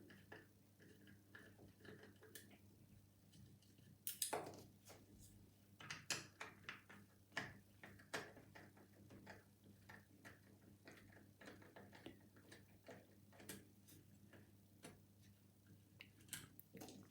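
Near silence with faint, scattered metallic clicks and taps, the strongest about four seconds in, as the screws of a mortice deadlock's case cover are undone and the lock body is handled.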